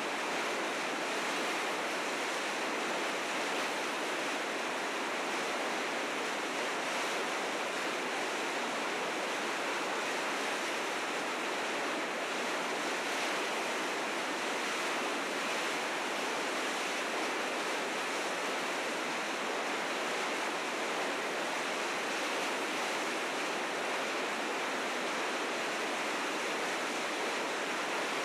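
River rapids rushing steadily, the fast, heavy current of spring snowmelt running through the rapids.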